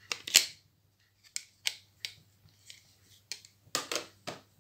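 A string of short sharp clicks and light taps from handling a small plastic eyeshadow palette: its lid being closed and the palette set aside. The loudest click comes right at the start.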